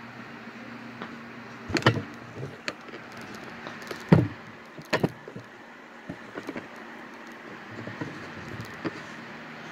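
A plastic mixing cup and other items handled on a wooden workbench: a few sharp knocks and clatters, the loudest about two and four seconds in, over a steady low hum.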